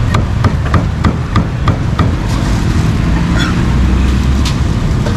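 A cleaver chopping grilled meat on a thick round wooden chopping block: sharp chops about three a second for the first two seconds, then a few slower strokes. A steady rumble of street traffic runs underneath.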